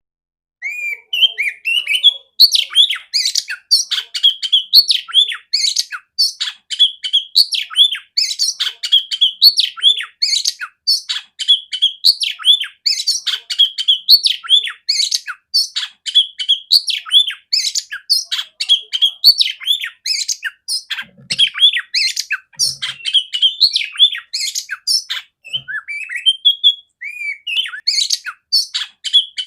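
Oriental magpie-robin (kacer) singing loudly and without pause: a fast, varied stream of clear whistled chirps mixed with harsher squawky notes.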